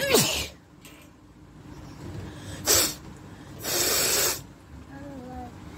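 A woman sneezing once, a noisy burst with a voiced cry that falls in pitch, followed by two hard blasts of air out through the nose: a short one about two and a half seconds later and a longer one of nearly a second just after it.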